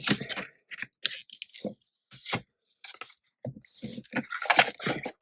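Irregular taps, clicks and light scrapes of paper-crafting supplies being handled: a rubber stamp, card and masking paper picked up, shifted and set down on a desk.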